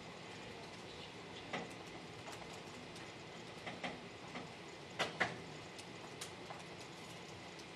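Keys of a TI-84 Plus Silver Edition graphing calculator being pressed while data is entered: a handful of scattered soft clicks, the loudest pair about five seconds in, over a steady low hiss.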